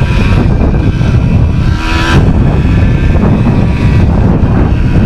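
Yamaha DT100's single-cylinder two-stroke engine running under way, a dense low rumble with wind buffeting the microphone.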